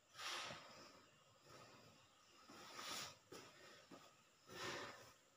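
A sleeping person's heavy breathing: three hissing breaths, about one every two seconds.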